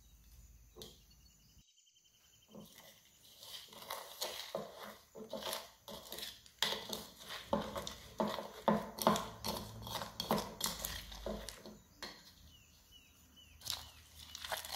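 A plastic spoon stirring and scraping around a plastic bowl, a quick run of clicks and taps against the sides as glitter and foam beads are mixed into slime. It starts about two and a half seconds in and eases off about twelve seconds in.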